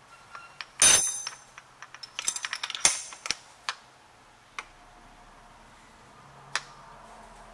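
Metal drive pins and a drilled metal disc clinking and tapping as they are handled and re-seated: a loud ringing clink about a second in, a quick clatter of clicks around two to three seconds in, then a few single clicks.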